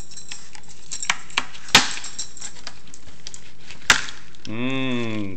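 Rigid plastic clamshell produce tub being snapped open: a few sharp plastic clicks and cracks, two small ones about a second in, the loudest just under two seconds in, and another loud snap about four seconds in. A man's voice follows near the end.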